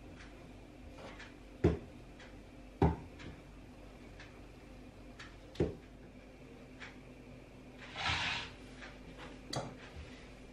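Kitchen handling sounds of pastry being worked on a wooden board: four sharp knocks spread a second or more apart, and a brief scraping hiss about eight seconds in, over a low steady hum.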